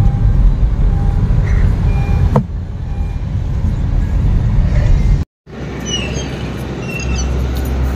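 Low wind and road rumble inside a moving car with the sunroof open, dropping in level after a sharp click about two and a half seconds in. It cuts off abruptly about five seconds in and gives way to a steadier outdoor rumble with a few faint high chirps.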